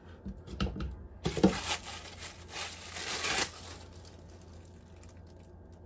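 Clear plastic packaging crinkling and rustling as a silicone kitchen utensil is pulled out of its plastic sleeve, starting about a second in and lasting about two seconds, after a few soft knocks.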